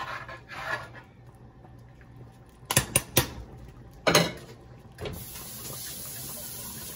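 A spoon stirs and scrapes through thick soup in a large aluminium pot. About three seconds in come three sharp knocks of the spoon against the pot, then a louder knock a second later. A steady hiss follows.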